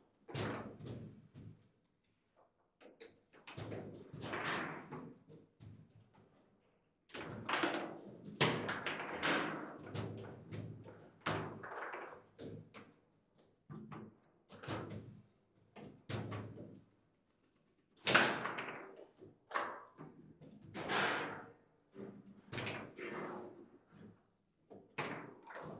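Table football (foosball) in play: hard knocks and slams as the plastic figures on the rods strike the ball and the rods bang against the table. They come in irregular runs with short pauses between.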